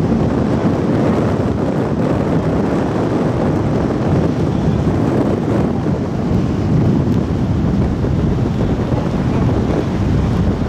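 Steady wind buffeting the microphone on the deck of a car ferry under way, with a low rush from the moving ship and the water beneath it.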